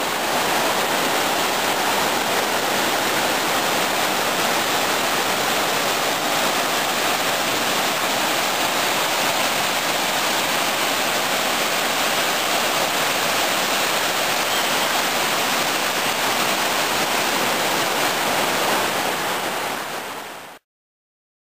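Whitewater rapids of a mountain river rushing over rocks, a steady loud roar of water that cuts off suddenly near the end.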